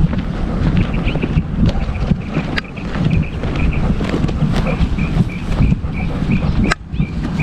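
Wind buffeting the microphone of a GoPro worn on a walking dog's harness, a rough gusting rumble with the bumps of the dog's movement. A faint, high chirp repeats about three times a second, and there are a couple of sharp clicks.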